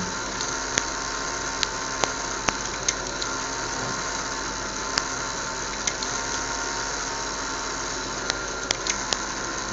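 Small fischertechnik electric motors spinning propellers under Arduino PWM control, giving a steady whirring hum, with scattered sharp clicks throughout.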